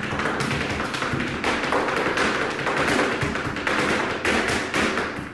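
Flamenco shoes striking the floor in zapateado footwork: a quick, uneven run of sharp taps and stamps, several a second.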